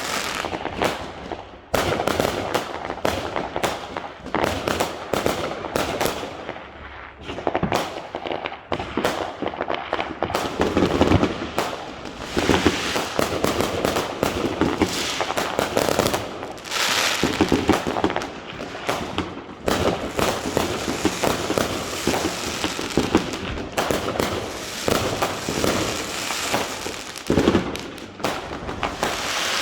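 Fireworks going off in quick succession: a continuous barrage of bangs and crackling that barely lets up, sharply loud about two seconds in.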